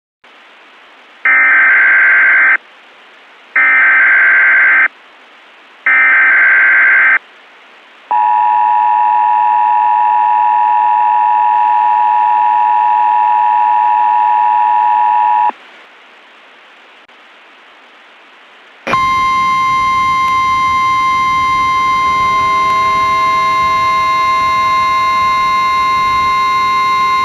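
Emergency Alert System tones: three short bursts of warbling SAME header data, then about seven seconds of the two-tone EAS attention signal. After a few seconds of faint hiss, a single steady high alert tone comes in and holds, with lower steady tones joining partway through.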